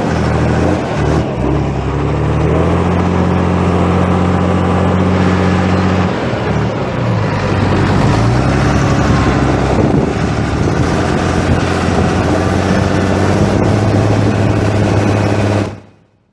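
Same farm tractor's diesel engine running under load in the field, its pitch dipping and picking up again a couple of times before holding steady. The sound cuts off suddenly just before the end.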